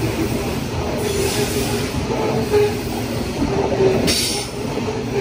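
Freight train of hopper wagons rolling past close by: a steady rumble of steel wheels on rail, with a faint squeal that comes and goes and a short hiss about four seconds in.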